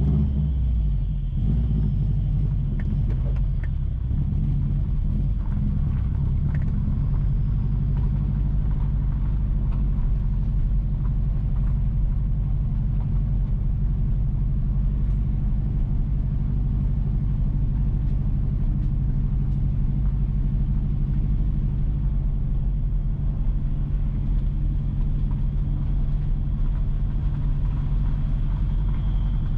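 A car driving steadily at low speed, its engine and tyres making a low, even rumble.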